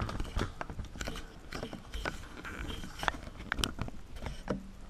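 Scattered light clicks, ticks and rustles of things being handled, a few sharper ticks standing out among them.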